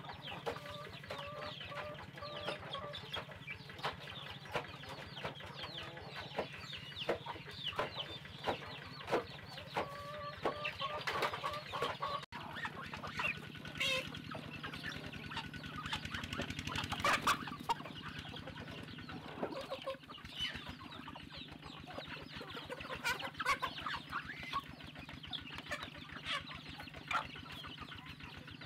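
Chickens clucking and chicks peeping continuously, many short, quick, falling chirps over lower clucks, with scattered sharp taps as the flock feeds.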